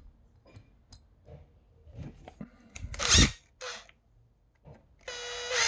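Faint clicks and small scrapes of a screwdriver and fingers working a plastic microphone handle as a switch is screwed back in place, with a short hissing burst about three seconds in and a brief steady tone near the end.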